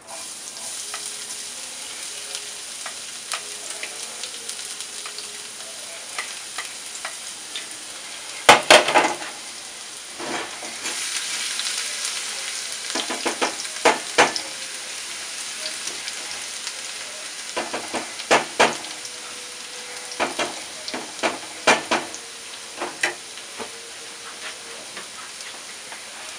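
Chopped garlic sizzling in hot oil in a nonstick frying pan, the sizzle starting as the garlic drops in. A silicone spatula scrapes and taps against the pan in several spells of stirring, loudest about eight seconds in.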